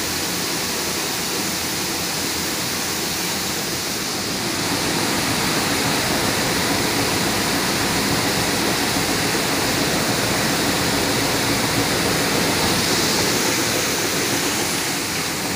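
Steady rushing noise of a grain colour sorter line running, with grain pouring down the metal outlet chute into a sack; it grows a little louder about four and a half seconds in.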